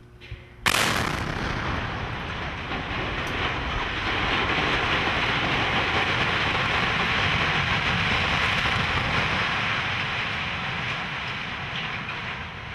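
Demolition implosion of a steel-framed boiler structure: explosive charges go off with a sudden loud blast under a second in, followed by a long continuous crashing noise as the structure topples and collapses, easing off near the end.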